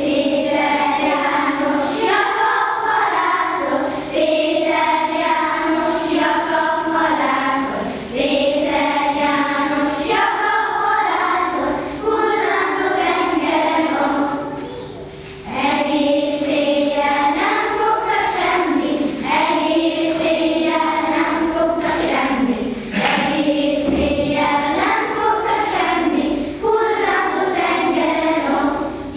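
A children's choir singing a song together in phrases of a few seconds, with a brief pause about halfway through.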